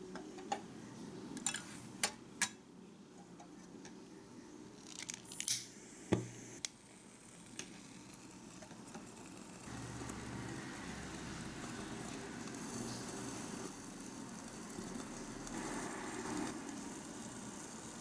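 Light clicks and a louder knock about six seconds in, as a tiny pot is handled and set down on a miniature stove. Then a soft steady rush from about ten seconds in, as frying oil is poured into the pot from a small measuring cup.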